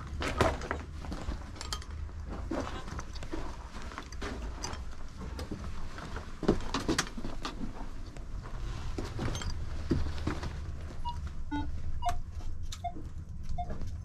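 Footsteps crunching and scuffing on dry gravel and packed dirt, with small knocks and rattles, over a low rumble. Near the end come a few short beeps at different pitches from a Minelab Equinox 600 metal detector.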